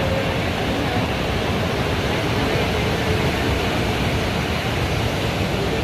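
Steady, unbroken rush of surf and wind at the beach.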